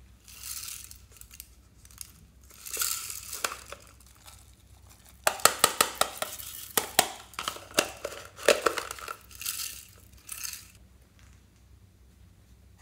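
Sequins and glitter shaken from a plastic shaker container into a glass dish, landing as a dense patter of tiny clicks and rattles in several bursts. The busiest stretch runs from about five to eleven seconds in.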